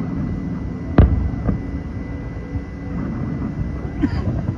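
Fireworks display heard from afar: a steady low rumble of bursting shells, with one sharp bang about a second in, the loudest sound here, and a few fainter thuds after it.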